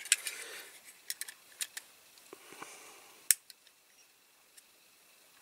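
Sharp clicks and light scraping of a small hand tool working against a Corgi diecast Rover 2000 model as its glued parts are prised apart, with the loudest click about three seconds in.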